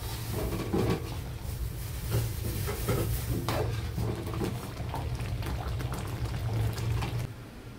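Metal spoon stirring and scraping in an aluminium wok of simmering cornstarch-thickened soup, with scattered clinks against the pan over a steady low rumble. The rumble drops away near the end.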